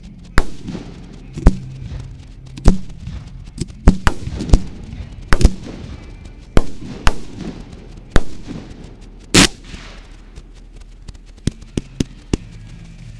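Fireworks firing from the ground: a series of sharp bangs about once a second, a longer blast near ten seconds in, then a quick run of four smaller cracks near the end.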